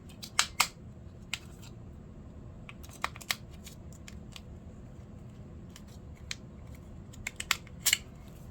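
Sharp clicks and light clatter of smart-lock parts being handled, coming in small clusters with pauses between.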